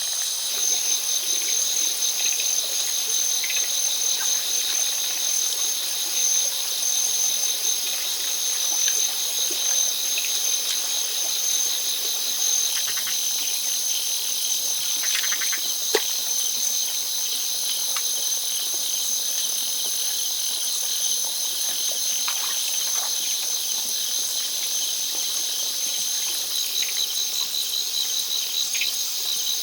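Steady chorus of insects, crickets or similar, with several high pulsing trills layered together. A single sharp click about halfway through.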